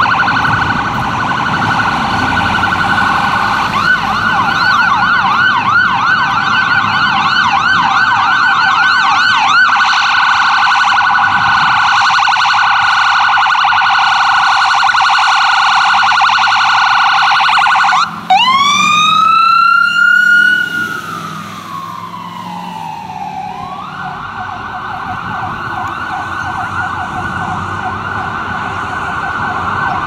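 Ambulance electronic siren on a rapid yelp, with a second, slower-sweeping siren layered over it for a few seconds early on. About eighteen seconds in it switches to a single long wail that climbs and then falls away, and the rapid yelp starts again near the end.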